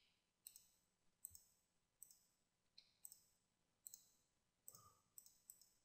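Faint, irregular clicking of a computer mouse and keyboard, about a dozen sharp clicks spread unevenly, some in quick pairs, over near silence.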